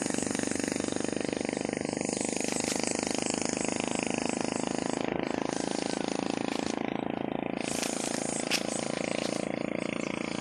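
A vehicle engine running steadily, with a fine even pulsing, and one short click about eight and a half seconds in.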